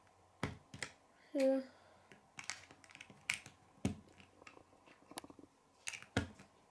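Lego bricks clicking as small pieces are pressed and snapped onto a plastic plate: a series of sharp, irregular clicks about one every second or so.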